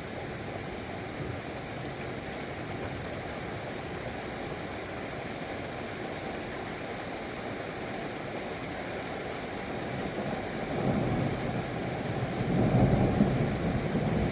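Steady rain with a low rumble of thunder that swells about two-thirds of the way through and is loudest near the end.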